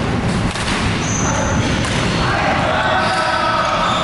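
Badminton rallies in a large sports hall: sharp racket hits and thuds of footsteps on the court floor, with voices in the background.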